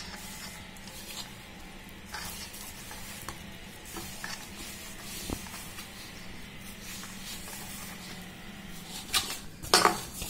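Hand kneading crumbly flour dough with water in a steel bowl: a soft, gritty rubbing with a few light clicks against the metal. Louder clattering comes about nine seconds in.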